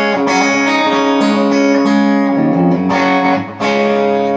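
Electric guitar strummed through an amp, its signal carried by a Joyo wireless transmitter: sustained ringing chords, with a chord change about halfway through and a brief dip in level near the end before the next chord.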